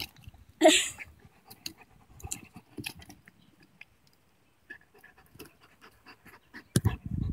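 A dog gnawing and biting at a young tree's trunk: scattered clicks and scrapes of teeth on bark, with a short louder burst about a second in. Heavy panting breaths come in near the end.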